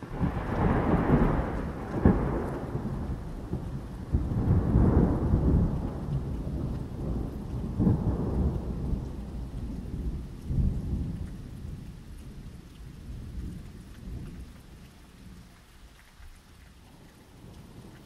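Thunder rolling over steady rain. A loud peal breaks in suddenly at the start, further rumbles and cracks come about two, five and eight seconds in, and the rumbling dies away over the last several seconds.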